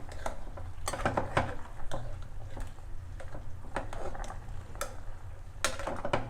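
Metal spoon or ladle knocking and scraping against a cooking pot while stirring a boiling stew, an irregular series of clicks and knocks over a low steady hum.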